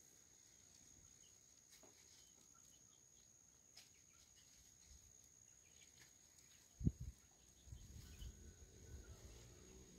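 Near silence: faint outdoor ambience with a thin steady high-pitched tone throughout. A single thump comes about seven seconds in, followed by soft low rumbling and rustling.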